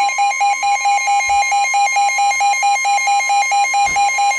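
Weather alert radios going off for a new warning: a rapid pulsed alert beep, about four a second, over the steady 1050 Hz NOAA Weather Radio warning alarm tone.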